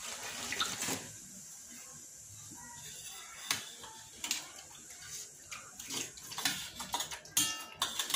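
A metal spoon clinking and scraping against a large metal plate while a man eats soybeans in broth, with a slurp of broth drunk from the plate about half a second in. The strikes are scattered, with a quick ringing run of them near the end.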